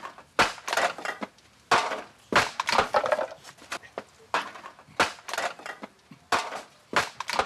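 Irregular clattering and knocking of hard objects being handled, a dozen or so sharp knocks at uneven intervals, some with a brief ring after them.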